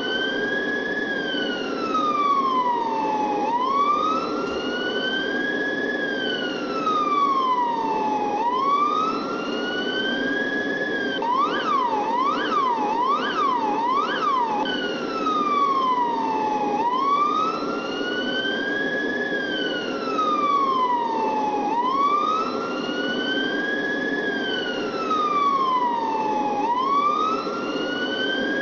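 Police siren wailing, its pitch rising and falling slowly in cycles of about four to five seconds. Near the middle it switches to a fast yelp of about five quick sweeps, then goes back to the wail. A steady low noise runs underneath.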